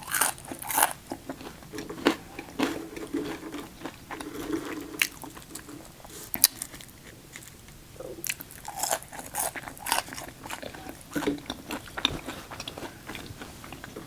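Close-miked chewing and crunching of a chicken Caesar wrap with crisp lettuce, with irregular crunches and wet mouth clicks.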